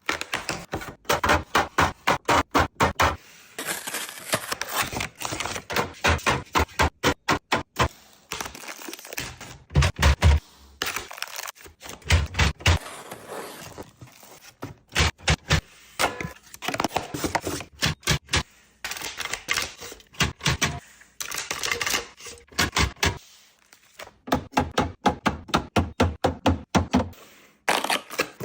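Restocking a fridge: rapid clicks, taps and knocks of plastic containers, packaging and items being handled and set down, with a few heavier thuds about a third of the way in.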